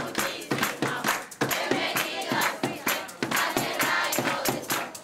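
A group of children and a woman singing together, clapping their hands in a quick, steady rhythm of about three or four claps a second.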